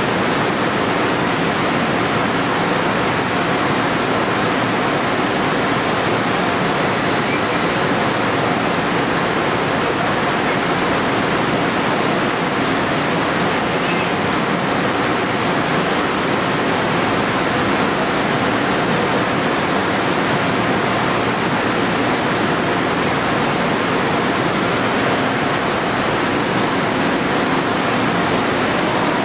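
Steady rushing noise of an electric commuter train standing at the platform with its onboard equipment running, with one short high beep about seven seconds in.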